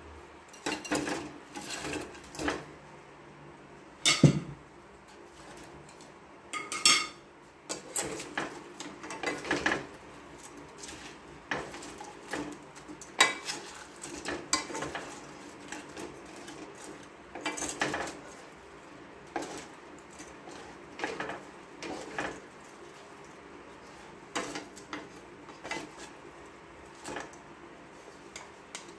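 A wooden spatula and a plastic rice paddle scraping and knocking against a granite-coated nonstick wok while fried chicken pieces are tossed in a thick sauce. Irregular scrapes and taps, with a sharper knock about four seconds in.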